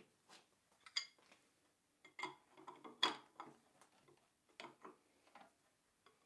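Scattered light metallic clicks and clinks as a drill chuck's straight-shank arbor is pushed up into a milling machine's collet chuck and the collet nut is tightened with a hand tool. The taps are irregular, the loudest about a second in and about three seconds in.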